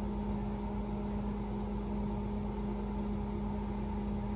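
A steady, even machine hum with a low drone.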